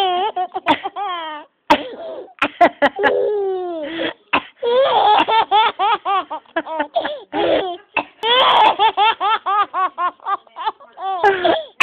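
A baby laughing in long strings of rapid, high-pitched giggles, set off by a woman's coughs that break in several times.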